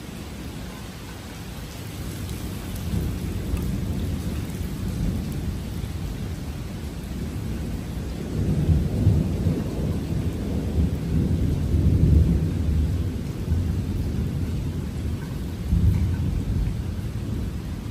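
Rolling thunder: a long, low rumble that builds over the first few seconds and swells several times, loudest about halfway through and again near the end.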